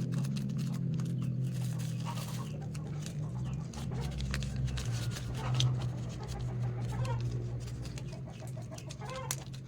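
Short animal calls now and then, over a steady low hum and light clicking.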